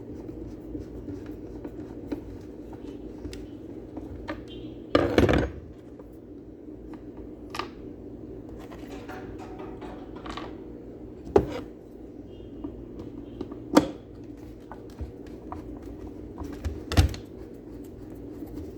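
Metal clinks and knocks as nuts are fitted and tightened on a Hoover carpet cleaner, a handful of separate sharp taps with the loudest about five seconds in, over a steady low hum.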